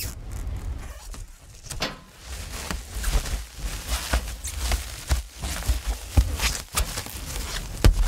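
Plastic cling wrap being handled and crinkled: irregular sharp crackles over a hiss, with a brief lull a little after a second in.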